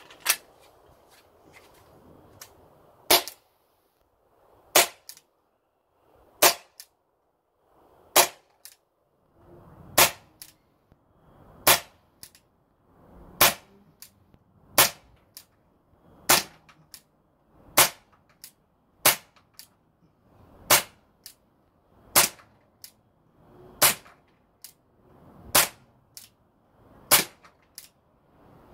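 Umarex Glock 17 Gen5 CO2 blowback pellet pistol fired in a slow, steady string, about seventeen sharp cracks, one every one and a half to two seconds. Each crack is followed by a fainter click.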